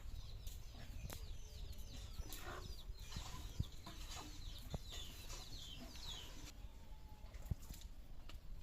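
Domestic chickens calling: many short, high, falling chirps in quick succession that thin out after about six seconds, over a steady low rumble.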